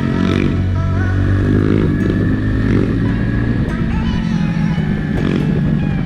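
Motorcycle engine running steadily while riding, with music playing over it.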